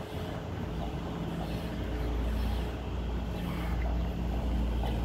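A steady low rumble with a faint hum in it, unchanging throughout.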